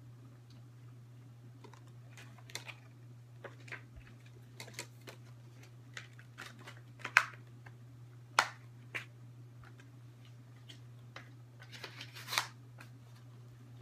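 Scattered sharp plastic clicks and taps from a movie disc case being handled, the loudest about halfway through and a short cluster near the end, over a steady low hum.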